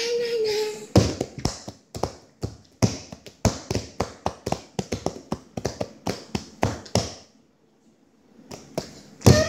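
A child's short sung 'ah' at the start, then a quick, irregular run of sharp taps, several a second, close to the microphone, stopping about seven seconds in.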